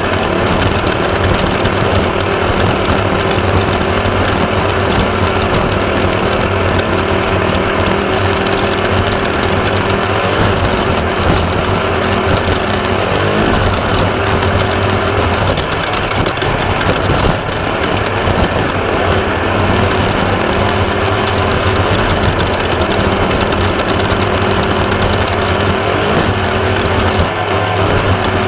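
1/2-1600 class off-road race buggy's air-cooled VW 1600 engine running hard at a steady pitch, under a constant rattle and clatter from the car crossing rough desert ground. The engine note and level dip briefly a little after halfway, then pick up again.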